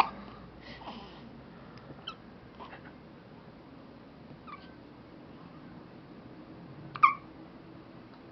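A pet hiccuping: short high-pitched hics spaced a second or more apart, the loudest about seven seconds in.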